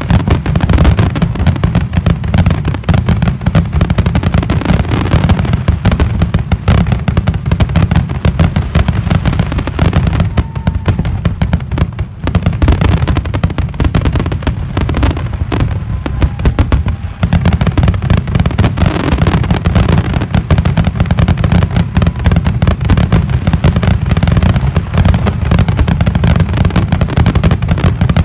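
Loud fireworks finale barrage: aerial shells launching and bursting in rapid succession, the bangs and crackles overlapping almost without a break. The barrage thins briefly about halfway through, then builds back to a continuous salvo.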